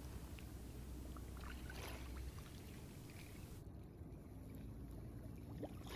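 Faint lapping of shallow sea water at a rocky shoreline, with a few small knocks. The background hiss drops away about three and a half seconds in.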